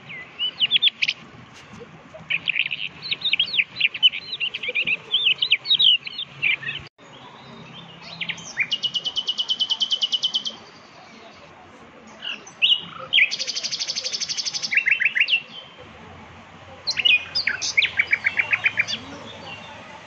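Songbird singing in separate phrases: quick high whistled notes and fast trills of evenly repeated notes, with pauses between phrases and a brief break about seven seconds in.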